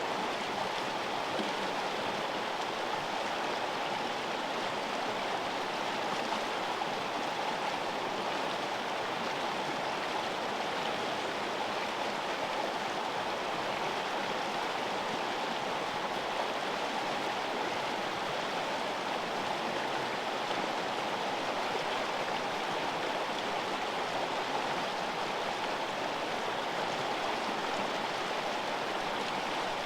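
River flowing: a steady, even rush of running water, unchanging throughout.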